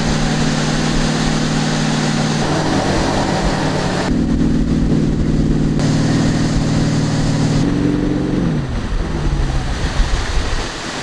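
Ski tow boat's engine running steadily at towing speed over the rush of churning wake water and wind on the microphone. In the last few seconds the engine slows, its pitch falling.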